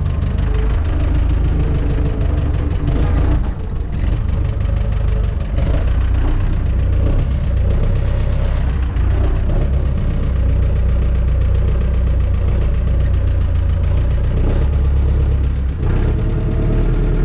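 Renault 651 tractor engine running steadily at low revs while the tractor is manoeuvred, with a few short clunks.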